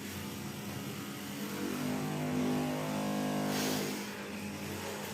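A motor running, with a steady low hum throughout and a louder stretch of about two seconds in the middle that ends in a short hiss.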